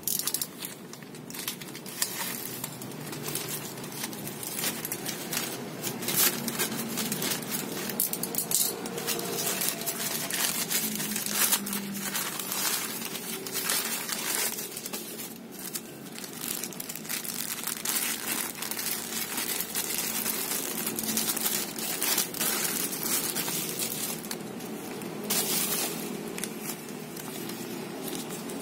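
Plastic packaging crinkling and rustling as it is handled: a plastic courier mailer bag cut open and pulled apart, then small clear zip-lock bags. Irregular crinkles and crackles run throughout.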